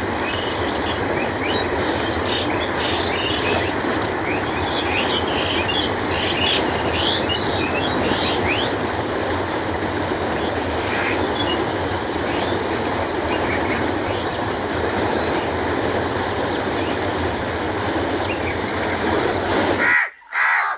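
Canal water flowing with a steady rush, with small birds chirping over it during the first half. Near the end the water sound cuts off suddenly and a crow caws.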